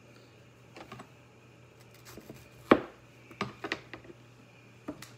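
A handful of scattered light clicks and knocks, the sharpest about two and a half seconds in and a quick cluster just after, over a faint steady hum.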